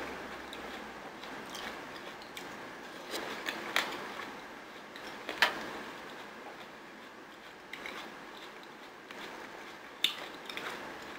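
Close-up eating sounds of watermelon chunks being bitten and chewed off a fork, with a few sharp clicks scattered through. The loudest clicks come about five and a half seconds in and again near the end.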